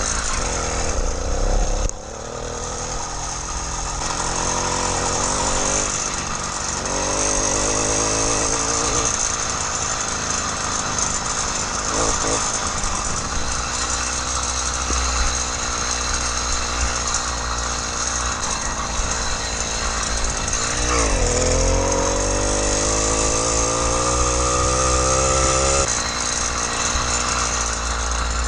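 Small two-stroke 80cc motorized-bicycle kit engine running on a new engine's first mile, its pitch rising and falling with the throttle. About two-thirds of the way in the revs climb steadily for several seconds, then drop back.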